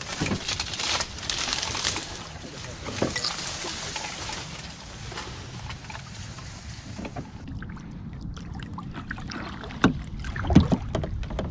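Pirogue pushed by paddle through tall marsh grass, the grass rustling and scraping along the hull, then gliding out onto open water, quieter, with a few knocks near the end.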